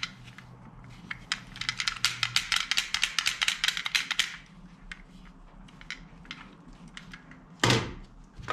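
A toy gun's plastic mechanism giving a quick run of sharp clicks, about four or five a second, for about three seconds. One louder single burst follows near the end.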